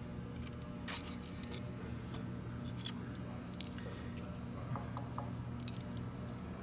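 Light clicks and taps of gearbox parts and spacers being handled and slid off a shaft, four or five in all, over a steady low hum.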